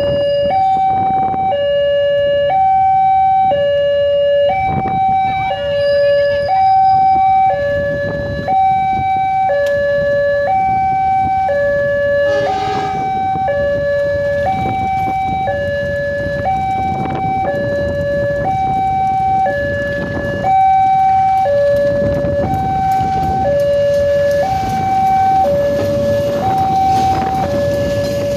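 Indonesian railway level-crossing warning alarm sounding continuously: an electronic two-tone signal alternating between a higher and a lower note, about one cycle every two seconds, warning of an approaching train. In the last few seconds a passenger train's rumble rises under it as the coaches pass the crossing.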